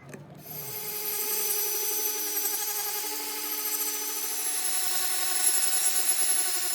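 Power tool, most likely a wood lathe, running with a steady whine of several held tones. It starts up about half a second in.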